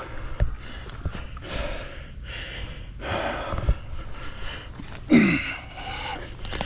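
A mountain biker breathing hard and close to the microphone, with a loud falling exhale about five seconds in, and a few sharp knocks.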